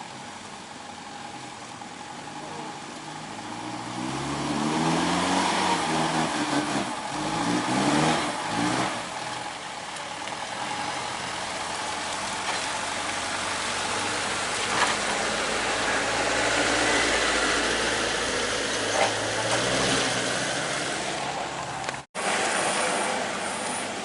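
Heavy vehicle's diesel engine revving under load, its pitch rising and falling several times about five to nine seconds in, then running on steadily at high power. The sound drops out for an instant near the end.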